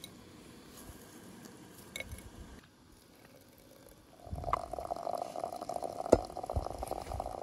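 Hot water pouring from a samovar's tap into a glass teapot of dried flowers: a steady pouring, filling sound that starts about four seconds in. There is one sharp clink just past six seconds.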